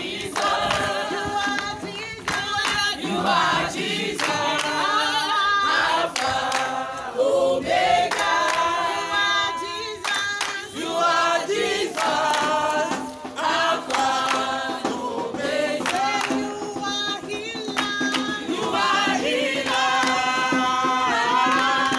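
A group of people singing together, many voices in chorus, phrase after phrase.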